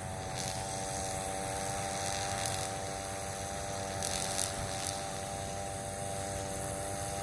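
A steady, even engine drone holding one pitch, after rising into place just before; a few faint clicks sit over it.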